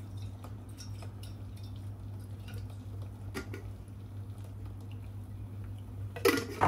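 A spoon stirring a pot of tomato-and-pepper sauce, with light clicks and scrapes against the pot and a louder clatter near the end, over a steady low hum.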